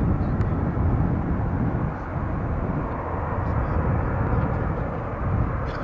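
Airbus A350-1000's twin Rolls-Royce Trent XWB-97 turbofans at taxi power, a steady rumble and rush as the jet rolls along the taxiway.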